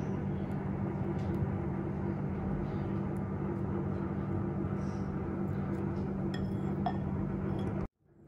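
Steady low hum with a few faint clinks of a metal spoon against a glass pie dish as dollops of whipped egg-white mixture are laid onto the pudding. The sound cuts off abruptly near the end.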